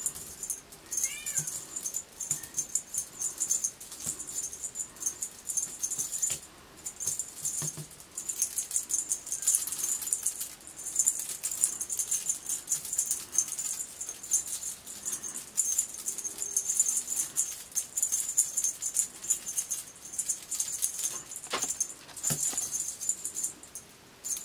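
Cat toy shaken in front of a kitten, making a rapid, continuous high-pitched rattle or jingle that stops briefly a few times. A short wavering squeak comes about a second in.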